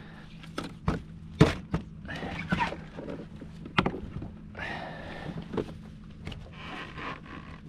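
Irregular knocks and thumps on a plastic kayak deck as a freshly landed cobia and gear are handled and laid flat, with a few short rustles between them.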